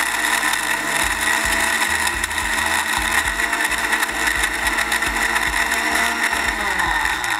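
Panasonic 3-in-1 juicer-blender running at full speed, blending milk, pineapple chunks and ice to crush the ice. Its motor pitch falls near the end as it winds down.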